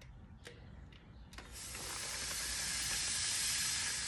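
A few light clicks, then compressed air hissing steadily from a compressor's air chuck into a fat-bike tire's valve, growing louder after it starts about a second and a half in. The tire is being inflated to push its bead out onto the rim.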